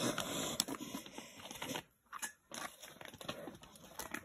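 Black bear's claws scraping and gripping tree bark as it climbs down the trunk: a dense run of scratching with sharp clicks, a short pause about two seconds in, then more scratching.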